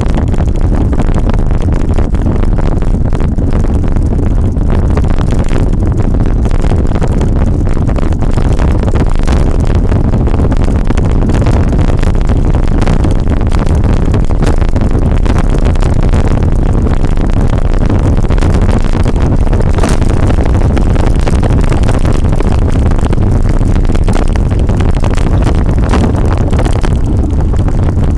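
Wind buffeting a camera microphone on a mountain bike going fast down a rough dirt track. Under it, steady rumble and rattle of the tyres and bike over the bumps.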